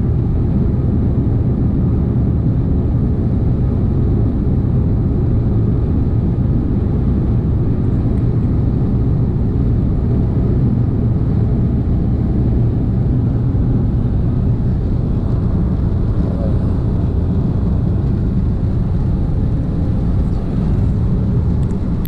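Steady road, engine and wind noise inside a Smart car's cabin cruising at highway speed: an unbroken low rumble.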